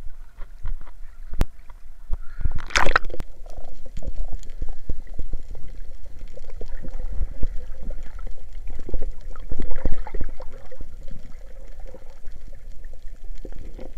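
Water heard through a camera held underwater: muffled sloshing and gurgling with many irregular knocks, and one louder burst about three seconds in.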